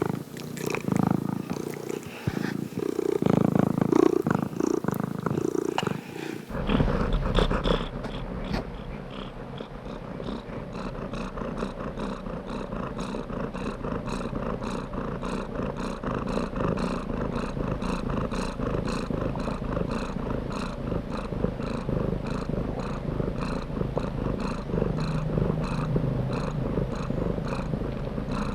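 Domestic cat purring. About six seconds in, the sound switches abruptly to a steadier purr with an even, repeating rhythm.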